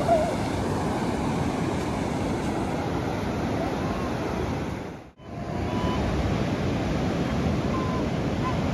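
Steady rush of ocean surf breaking on the shore, with some wind on the microphone. The sound cuts out for a moment a little past halfway, then the surf carries on.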